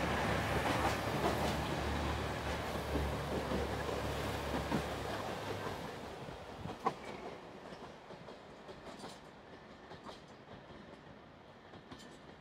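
Diesel express train running past below and pulling away: a steady rumble of engine and wheels on rail, whose low hum drops out about six seconds in before the sound fades away, with one sharp clack near seven seconds.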